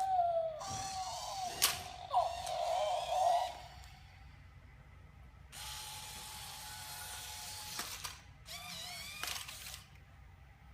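HappyCow Smart Dog robot dog toy making electronic chirps and gliding beeps from its speaker, with its small geared wheel motors whirring steadily for a couple of seconds past the middle.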